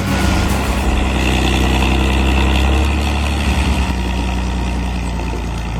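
A Valmet forestry harvester's diesel engine runs steadily and heavily while its head strips branches from a felled tree, with a steady hiss above the engine.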